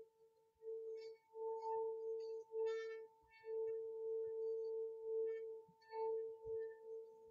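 Small metal singing bowl played with a mallet: one steady ringing tone with a fainter higher overtone, swelling and dipping every second or so, with a few light metallic chinks.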